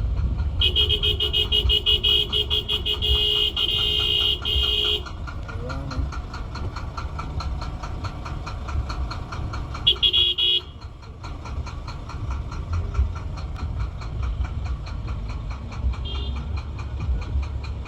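A vehicle horn sounds one long steady blast of about four seconds, then a short honk about ten seconds in, over a constant low rumble of traffic.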